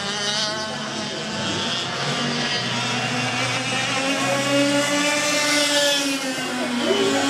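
Several 125cc two-stroke kart engines running together, their overlapping notes rising and falling slowly in pitch, one climbing near the end.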